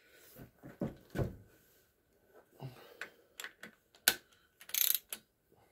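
Click-type torque wrench being set and fitted onto the cylinder head bolts of a Briggs & Stratton overhead-valve engine, the first torque pass on a new head gasket: a few handling knocks, several sharp metallic clicks, and a short quick run of ratchet clicking near the end.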